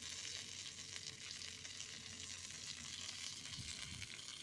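Masala-coated fish pieces frying in hot oil: a steady sizzle.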